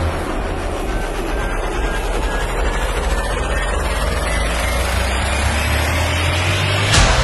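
Soundtrack sound design: a steady low rumbling drone with faint rising sweeps, ending in a sharp hit near the end.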